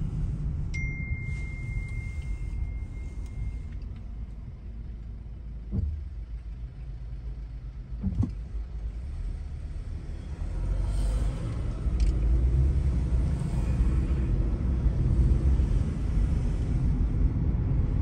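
Car interior road and engine rumble, quieter while waiting at a red light, then rising about ten seconds in as the car pulls away and picks up speed. A steady high beep lasts about three seconds near the start, and two short knocks come in the middle.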